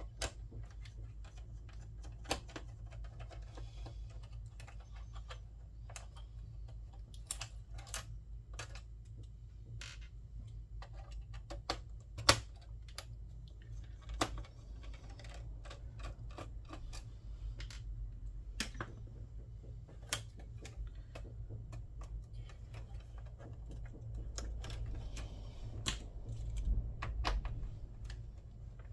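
Irregular sharp clicks and taps of small parts and tools being handled during the reassembly of a PlayStation 3, over a steady low hum.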